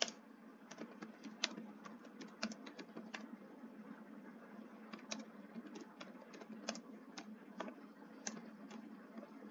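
Computer keyboard typing: faint, irregular keystrokes as text is entered into a form field.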